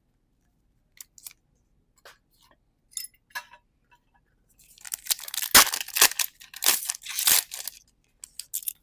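A few light taps and clicks of handling, then about three seconds of loud crinkling and tearing as a foil trading-card booster pack is ripped open, ending in a few more small clicks.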